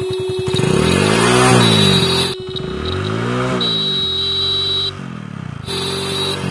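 Motorcycle engine revved twice, its pitch rising and falling each time, while the bike's electric horn sounds a steady tone that cuts out for about a second near the end.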